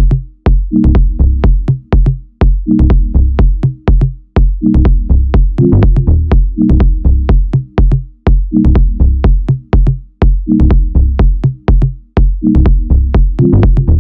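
Background electronic dance music with a steady drum-machine beat: kick drum, quick hi-hat ticks and low synth notes.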